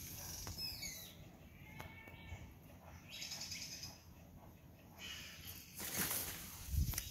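Birds chirping and calling in short high phrases, some falling in pitch, over a faint outdoor background; a louder rustle about six seconds in and a low thump near the end.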